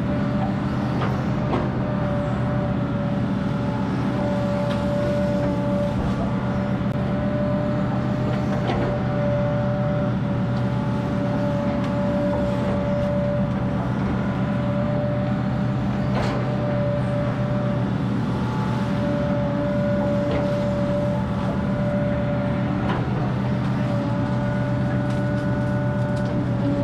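Diesel engine of a Hitachi Zaxis 210F amphibious excavator running steadily under working load, with a constant whine over it and a few faint knocks.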